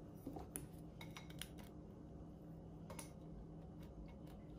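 Faint room tone with a few light clicks and taps of a small ceramic bowl as eggs are tipped from it into a glass mixing bowl. Most of the taps come in the first second and a half, with a couple more about three seconds in.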